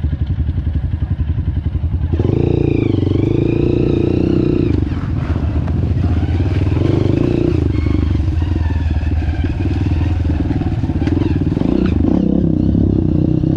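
Off-road trail motorcycle engine ticking over with a pulsing beat, then running louder from about two seconds in, its pitch dipping and rising with the throttle.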